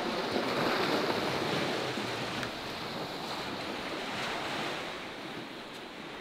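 Steady breeze and small waves on open bay water: an even, noisy hiss with no distinct events.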